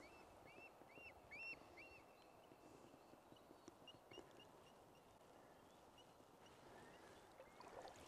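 A small bird calling faintly: a quick run of about five short chirps in the first two seconds, then scattered fainter chirps, over a faint outdoor hiss.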